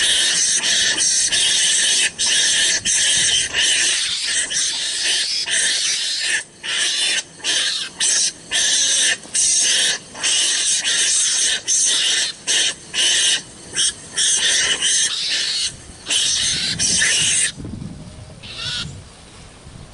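Loud, harsh animal calls in a long stop-start series of bursts and short breaks, ending about two seconds before the end.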